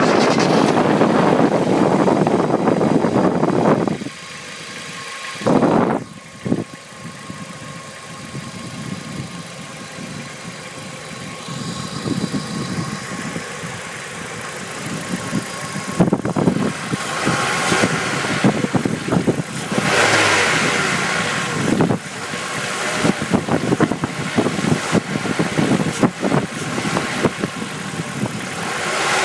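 Hyundai Accent petrol engine running at idle with a rapid ticking from the valve train, the tapping of its hydraulic valve lifters. The sound is loud and dense for the first few seconds, then quieter with the ticks standing out.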